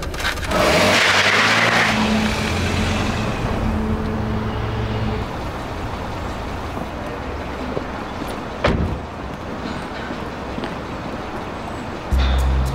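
A Hyundai taxi pulling away, with a loud rush of engine and road noise about a second in, then a steady low engine hum. A single sharp knock comes about two-thirds of the way through, a car door shutting.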